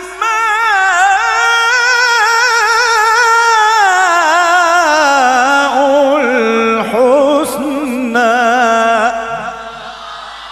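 A man reciting the Quran in the melodic tilawah style: one long held vowel ornamented with fast wavering runs, gliding down in pitch about four seconds in, then fading away near the end.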